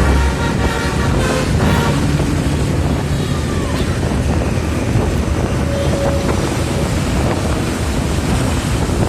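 Steady road traffic rumble with wind buffeting the microphone.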